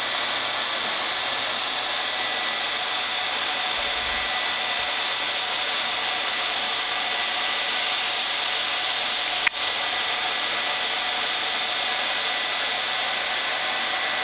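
Hot-air plastic welding pen and its separate air blower running, a steady rush of air with a constant high tone, as 4 mm round rod is draw-welded along a joint. A single sharp click about nine and a half seconds in.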